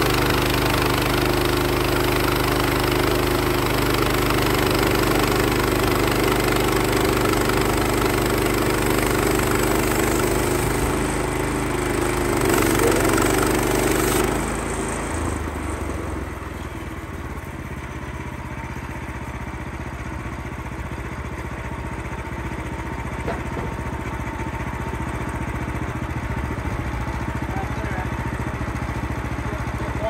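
Bandsaw mill's Kohler gas engine running at speed while its band blade cuts through a live oak log. About halfway through, the cutting noise stops suddenly and the level falls, as the cut ends and the engine runs on more quietly. The owner suspects the engine is not reaching its full 3600 rpm under load.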